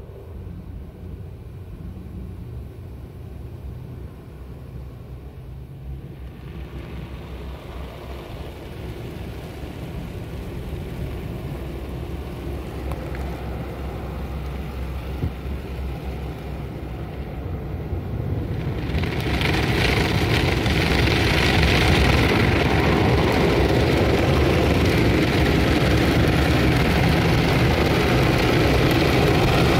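Automatic car wash heard from inside the car: a steady low rumble of machinery while coloured foam goes onto the windows. About two-thirds of the way through, a loud, even rush of water spray rises and holds as the rinse hits the car.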